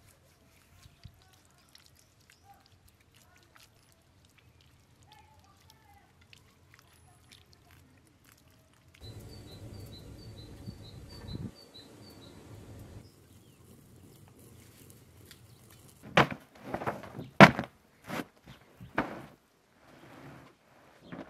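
A heavy woven carpet being shaken out and laid down on concrete, giving five or six loud flaps and thumps over a few seconds near the end. Before that, only faint bird chirps.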